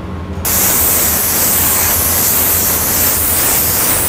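Airbrush fed by an air compressor, spraying body paint: a loud, steady hiss of air and paint mist that starts abruptly about half a second in.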